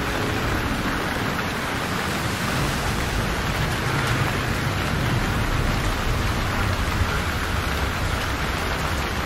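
Steady rushing noise of wind and choppy sea water around a small wooden boat, with wind rumbling on the microphone.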